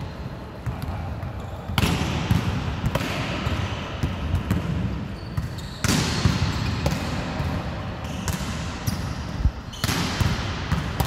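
Volleyballs being struck by hand and bouncing on the court floor: a run of sharp slaps, each with a long echo from the large hall.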